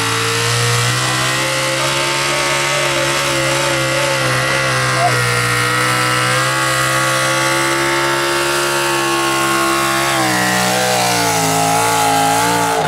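Chevrolet Super Stock two-wheel-drive pulling truck's engine running at high revs under full load through open exhaust stacks while dragging the sled. About ten seconds in the pitch drops as the engine loads down, then it picks up a little near the end.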